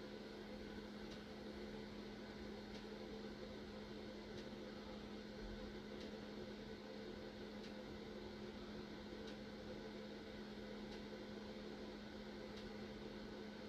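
Faint steady electrical hum over hiss, with a faint tick about every second and a half.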